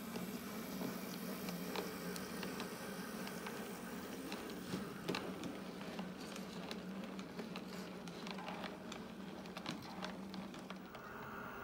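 Model Class 08 diesel shunter running on an OO gauge layout, hauling hopper wagons: a steady low motor hum with irregular light clicking of wheels over rail joints and pointwork. Near the end a higher steady motor whine comes in.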